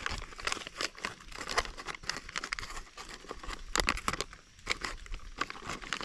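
Crinkling and rustling of a Mountain House backpacking meal pouch being handled, a dense run of irregular crackles.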